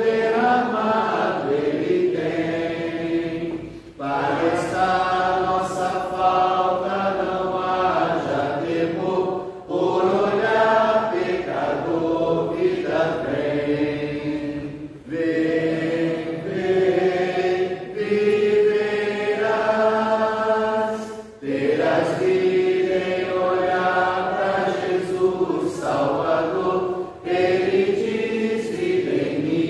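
Church hymn sung in Portuguese by a congregation, led by a man's voice. Held sung lines come in phrases with short breaks about every five or six seconds.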